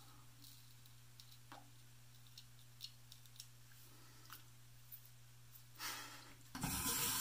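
Bathroom sink tap turned on about six and a half seconds in, water running into the basin. Before that, faint scattered clicks over a steady low hum.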